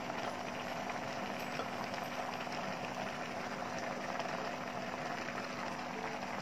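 Pinakbet, vegetables and fried fish in a little broth, simmering in a stainless steel pot: a steady fine bubbling and crackle of the boiling broth, with a faint steady hum underneath.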